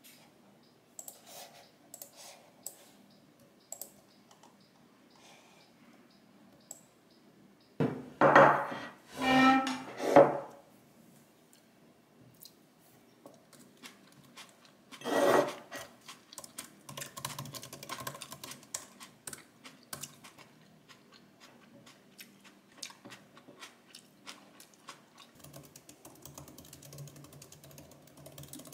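Typing on a MacBook laptop keyboard: scattered key clicks at first, then steady, fast typing through the second half. Two louder pitched sounds from an unclear source come about a third of the way in and again around the middle.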